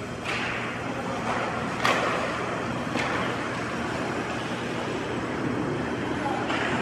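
Ice hockey rink sounds: a steady low hum of the arena with skate blades scraping the ice and a few sharp clacks of sticks and puck, the loudest about two and three seconds in.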